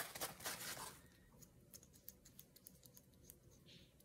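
Paper towel rustling as it is rubbed over a small glass bottle for about a second, then faint, scattered small ticks of fingertips pressing and handling the bottle.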